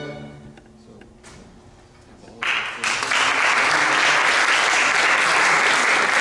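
A string orchestra's final chord fades away, and after a short hush an audience breaks into applause about two and a half seconds in, swelling quickly and carrying on steadily.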